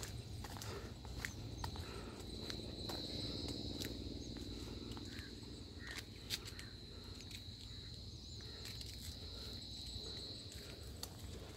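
Insects droning steadily at a high pitch, fading out near the end, with scattered footsteps and clicks over a low rumble.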